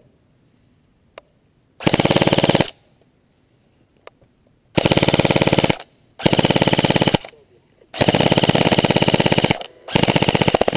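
Battery-powered airsoft rifle firing five full-auto bursts of about one to two seconds each, a fast, even rattle of shots.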